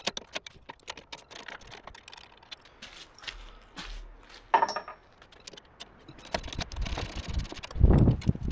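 Metal hand tools clinking and rattling as a toolbox of wrenches and sockets is rummaged through: a run of small clicks and knocks. A louder low rumble comes in near the end.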